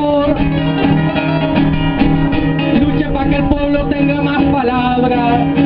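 Live folk music played on strummed acoustic guitars.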